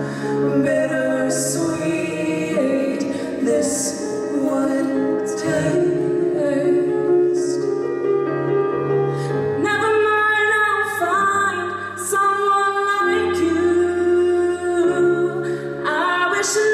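A large mixed choir singing a pop ballad in several-part harmony, with a female soloist's voice leading, the notes long and held.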